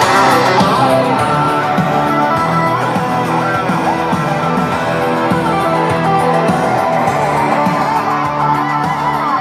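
Guitar music playing through a set of Panasonic SB-AFC286 shelf speakers, picked up close by the camera's microphone.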